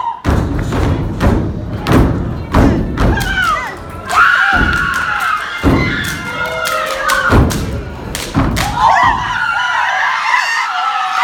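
A step team stomping in unison on a raised stage in a fast rhythm of heavy thuds, with hand claps mixed in and audience voices calling over it. The stomping breaks briefly about four seconds in and stops about nine seconds in, leaving the crowd's voices.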